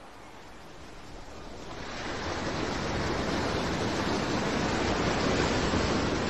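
Rushing, splashing sea water from a breaching humpback whale, swelling over about two seconds and then holding steady as water pours off the whale's body.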